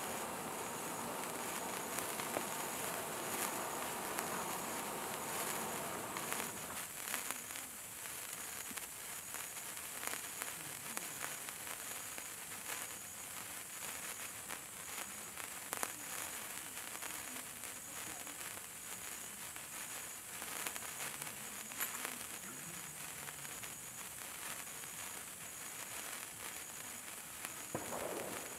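Long gold sparkler burning, a steady fizzing hiss with many small crackles.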